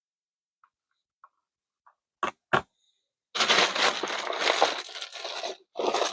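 Two sharp clicks a little over two seconds in, then about two seconds of loud rustling and handling noise, a short break, and a second burst of it near the end, as repair gear is taken out and handled.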